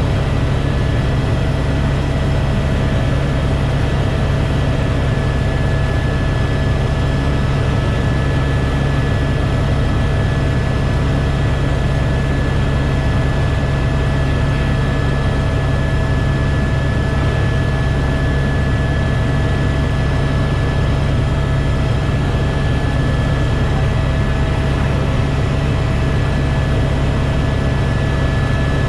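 Helicopter in flight, heard from inside the cabin: a steady, loud low drone of rotor and engine with a constant high whine over it.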